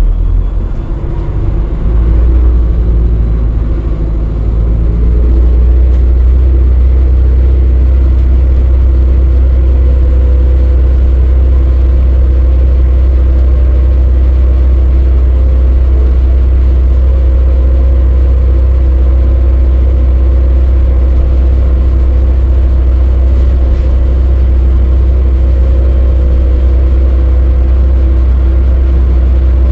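Inside an Alexander Dennis E400 Hybrid MMC diesel-hybrid double-decker bus at speed: a loud low rumble with faint steady whine tones over it, the sound of the axles slightly audible at faster speeds. It grows louder over the first few seconds as the bus picks up speed, then holds steady.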